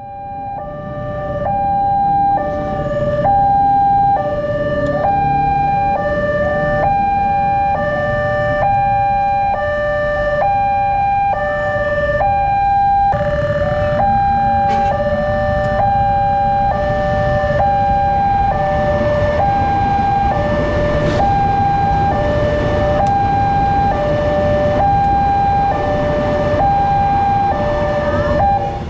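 Railway level-crossing warning siren sounding a steady electronic two-tone signal, a high and a low tone alternating about once a second, the warning that a train is approaching with the barrier down. A low rumble of waiting road traffic runs underneath.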